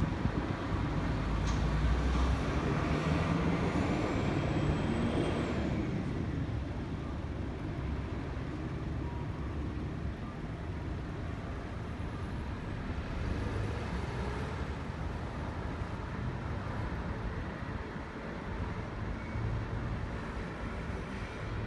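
Diesel city buses running with road traffic. The sound is louder for the first six seconds, with a thin rising whine around three to five seconds in, then settles to a steadier, lower engine din.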